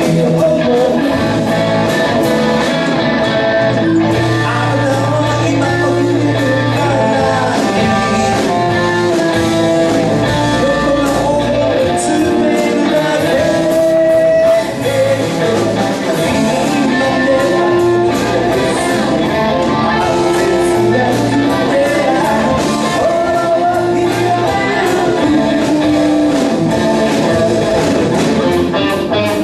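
Live band playing a rock song, with electric guitar over bass and drums.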